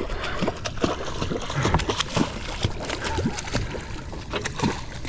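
Water splashing and sloshing at the side of a boat, with many irregular knocks and thumps, as a big hooked amberjack is brought to the boatside.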